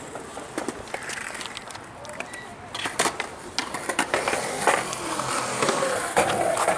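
Skateboards rolling and clacking on concrete, with many sharp knocks of boards and wheels striking the ground, coming more often in the second half.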